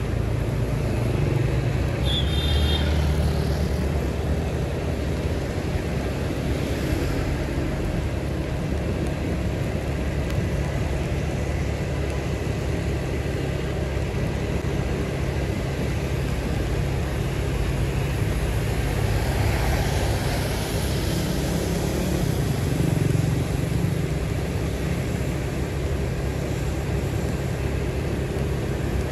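Steady road traffic noise with a heavy low rumble. It swells as vehicles pass, once about seven seconds in and again around twenty seconds in, and there is a brief high chirp about two seconds in.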